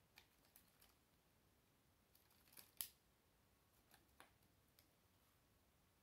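Faint, scattered clicks from a small Lego paper crimper being handled: its plastic parts and the paper strip clicking and rubbing in the fingers. The loudest click comes a little before the middle.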